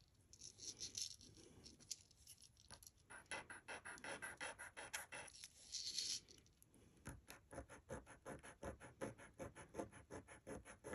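Faint, quick clicks and scratches of small metal jewelry pieces being handled on a tabletop. The ticking comes faster and more evenly in the second half.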